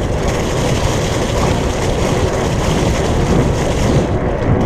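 Steady wind rush on the microphone of a fat bike riding on pavement at about 24 km/h.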